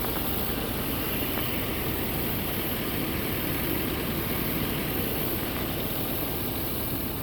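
A vehicle's engine running steadily with an even rumble and hiss, as the vehicle pulls in to a stop.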